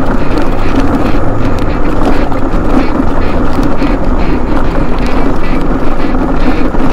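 Mobility scooter running fast over a rough gravel road: a loud, steady rumble and rattle of tyres and frame over the bumpy surface, with wind on the microphone.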